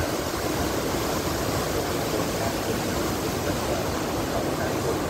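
Steady, wind-driven rain falling on trees and foliage, a continuous even rushing hiss with no let-up.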